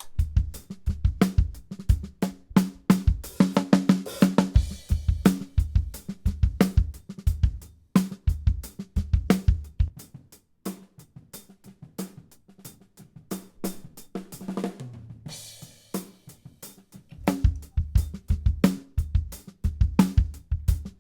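Drum kit playing a steady groove of kick, snare and hi-hat, played back from close microphones. About halfway through the kick and snare microphones drop out, leaving the hi-hat close microphone soloed: quieter, mostly hat, with kick and snare bleeding faintly into it. A few seconds before the end the full kit returns.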